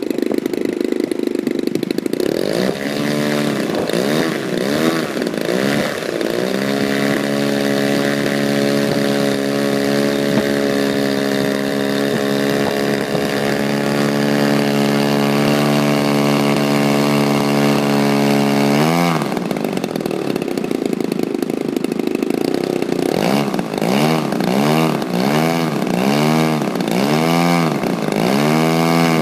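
DLE 55 RA single-cylinder two-stroke gasoline engine of an RC plane being run up: throttle blipped a few times, then held at a steady high speed for about twelve seconds before dropping suddenly to idle, and blipped about six more times near the end.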